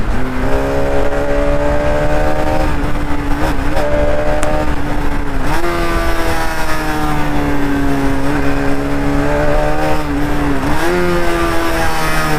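Bajaj Pulsar RS200's single-cylinder engine engine-braking as the motorcycle slows. Its pitch slides steadily down, then jumps up twice, about five and a half and eleven seconds in, as the rider downshifts.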